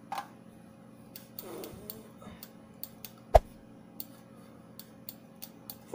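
Faint ticking clicks, about two a second, over a low steady hum, with one sharper click a little past halfway.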